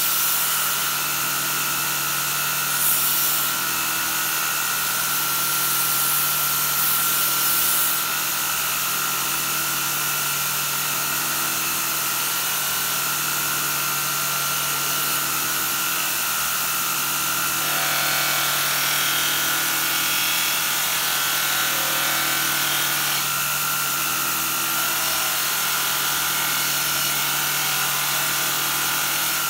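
Belt grinder's motor running steadily with a polishing-wheel attachment on its shaft, a knife blade being pressed against the wheel for sharpening and polishing. A rubbing hiss comes and goes over the steady hum as the blade touches the wheel.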